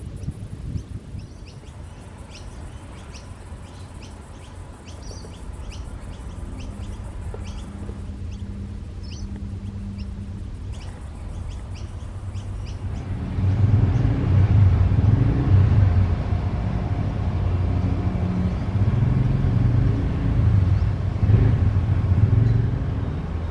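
Pacific National diesel locomotive PN001 working hard to haul a container freight train out of a loop. A low rumble becomes a loud, throbbing engine note about halfway through as the locomotive powers up and draws near. Birds chirp faintly in the first half.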